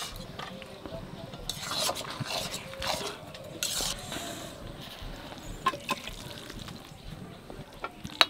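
A metal kadai of thick mixed-vegetable curry being handled and stirred. A spatula scrapes and rustles in bursts, with a few light metal clicks near the end.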